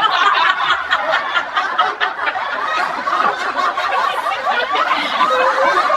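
A group of women laughing hard together, with overlapping chuckles and giggles that carry on without a break.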